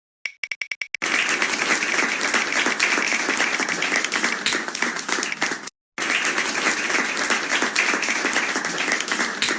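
App sound effects: a quick run of about seven ticks from the spinning wheel, then a recorded applause effect. The applause cuts off suddenly and starts again about six seconds in.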